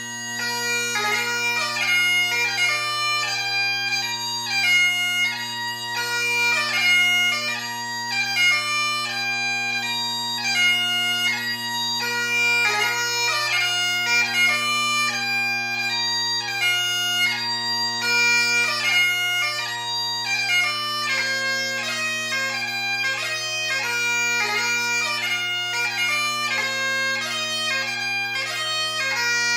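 Great Highland bagpipe playing a lively competition tune: steady drones sound underneath while the chanter plays a quick, ornamented melody of many short notes.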